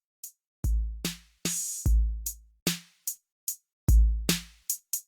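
Background music: a sparse drum-machine beat of long, low bass kicks and short, sharp snare and hi-hat hits, with silence between the hits.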